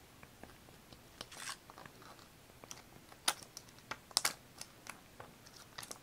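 Hands handling paper and stationery on a journal page: irregular light taps, crisp ticks and short paper rustles, with a couple of sharper ticks past the middle.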